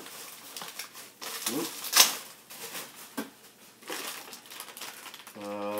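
Plastic packaging crinkling and rustling as parts are handled and unwrapped, with scattered clicks and one sharp click about two seconds in. A short hummed vocal sound near the end.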